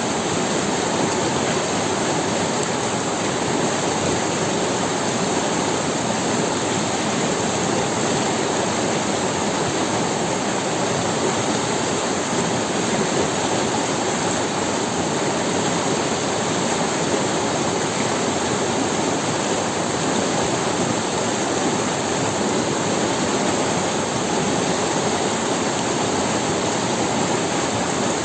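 River water rushing steadily over stones, a constant even roar with no change.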